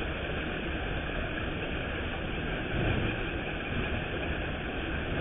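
Steady outdoor background noise through a camera's built-in microphone: a constant low rumble and hiss with no single clear source or distinct event.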